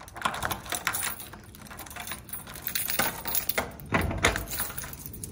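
A bunch of keys jangling and clicking against a door lock, a run of irregular metallic clinks and rattles, as a front door is unlocked and opened.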